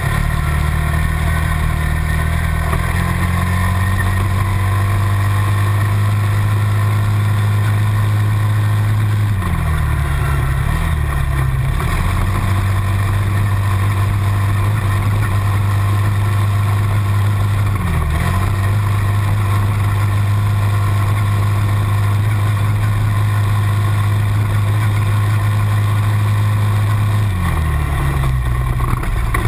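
Quad bike engines running steadily under load up a gravel trail: one engine note held at nearly constant revs, dropping off and picking back up briefly three times, about ten, eighteen and twenty-eight seconds in.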